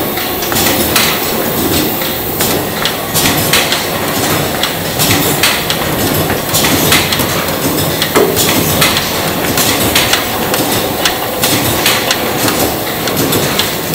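Food-production line machinery running: a steady mechanical din with a dense, irregular stream of clicks and clatters from conveyors.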